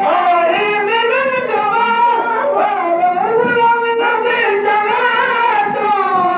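A high voice singing a Sindhi molood, a devotional song in praise of the Prophet, in long, gliding, ornamented notes without a break.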